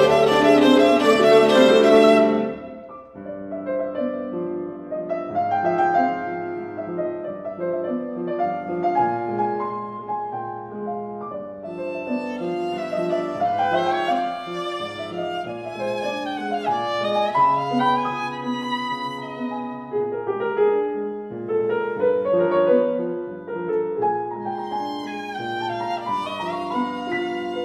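A violin-family bowed string instrument and a grand piano playing classical chamber music. A loud, full passage breaks off about two and a half seconds in, then a quieter passage follows, with a bowed melody over the piano that swells and falls.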